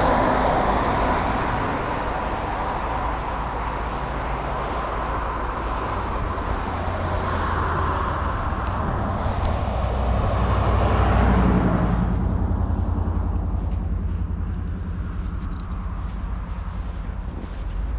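A train rolling past: a steady rumble with wheel and rail noise. The hiss dies away about twelve seconds in, leaving a lower rumble with faint ticks.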